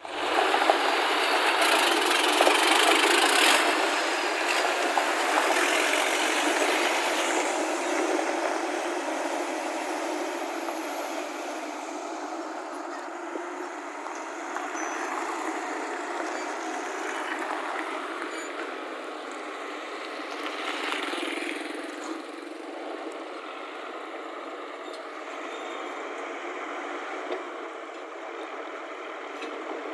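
Heavy construction machinery engine running, loudest in the first few seconds, then steadier and a little quieter.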